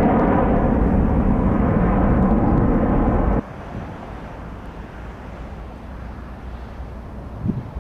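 Jet engines of a twin-engine widebody airliner climbing away after takeoff: a loud, steady rumble that cuts off abruptly about three and a half seconds in. Fainter, distant jet noise follows as a second airliner comes low over the runway.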